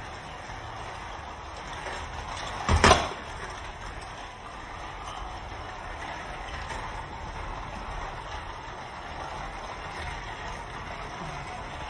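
Battery-powered Thomas & Friends TrackMaster toy trains whirring steadily along plastic track. About three seconds in comes one loud, brief clatter as a train comes off the spiral track and crashes down.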